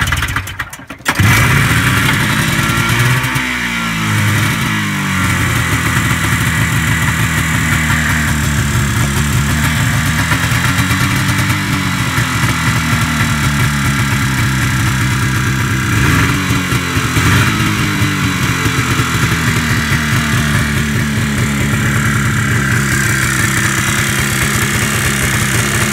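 A 1975 Arctic Cat Jag 340 snowmobile's Suzuki-built two-cylinder 339 cc two-stroke engine starts about a second in, then runs with a couple of brief revs and settles into a steady idle.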